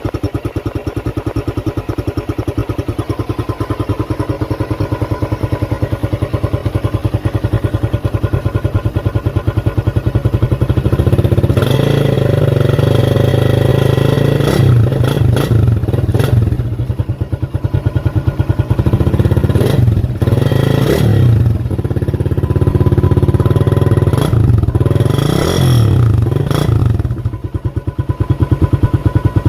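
Suzuki Raider 150 carb motorcycle running through its stock exhaust pipe with the catalytic converter removed: it idles steadily, then is revved several times in the second half, the pitch rising and falling with each blip.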